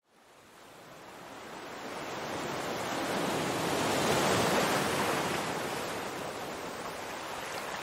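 Sea and wind rushing past a sailing yacht under way: an even wash that fades in from silence, is loudest about four seconds in, then eases a little.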